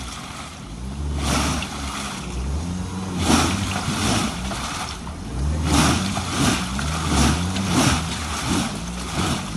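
Mahindra Thar stuck in wet clay, its engine revved again and again in surges, about four pushes of a couple of seconds each. Each rev brings a rush of spinning tyres churning mud as the vehicle fights to climb out.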